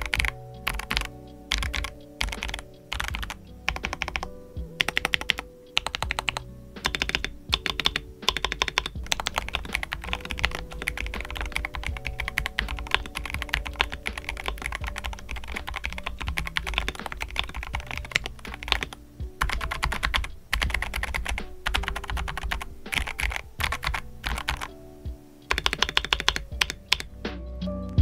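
Typing sound test on a mechanical keyboard with Akko Rosewood linear switches and pudding keycaps: a steady run of deep, thocky keystrokes over background music.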